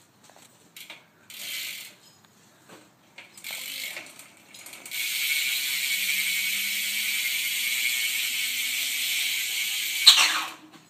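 BMX rear hub ratcheting as the wheel freewheels, its pawls clicking so fast they blur into a high buzz. There are two short spins first, then one long steady spin of about five seconds that stops abruptly near the end.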